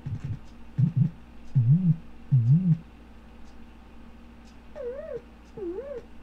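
Home-built analog modular synthesizer's sine output: short gated tones whose pitch wobbles up and down under control-voltage modulation. Four low swooping notes come in the first three seconds, then after a quieter stretch two higher, fainter warbling notes follow around five seconds in.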